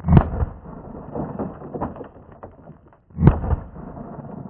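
Two shots from a Sig Sauer P220 Legion 10mm semi-automatic pistol, one right at the start and one about three seconds later, each a loud boom with a short echo trailing after it.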